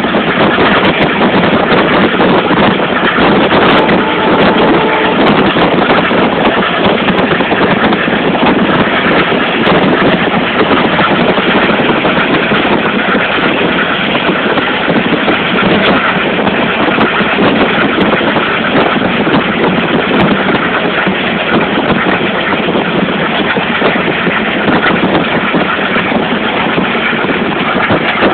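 Steady rushing running noise of a moving train, heard from aboard, loud and even throughout.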